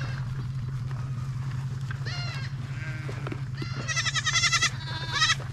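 Goats bleating to be fed: high, wavering bleats about two seconds in, then a loud run of them from about four seconds in, over a steady low hum.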